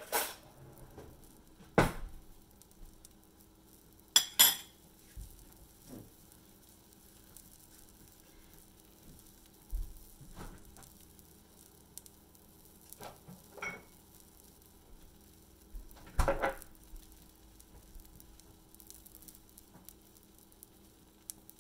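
A banana pancake sizzling faintly in a frying pan, broken by scattered clinks and knocks of cutlery and kitchenware as a fork is fetched and set on a plate; the loudest clatter comes about four seconds in. A steady low hum runs underneath.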